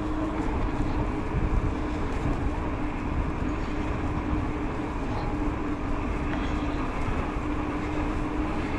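Steady rush of riding noise and wind from a Haibike SDURO FullNine 4.0 electric mountain bike on the move, with a constant low hum under it.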